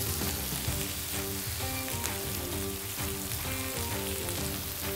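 Fried rice sizzling steadily on the hot griddle of a wood-fired grill as peas and carrots are stirred in, with background music playing melodic notes underneath.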